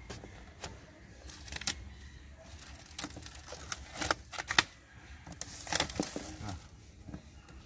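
Cardboard box being opened and unpacked by hand: a run of scrapes, rustles, short tearing sounds and sharp clicks, the sharpest about four and a half seconds in.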